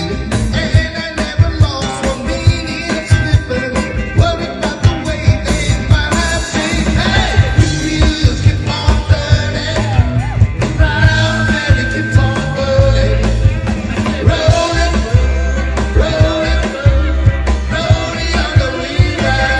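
A band playing a song, with a steady drum beat, pitched instruments and a singing voice.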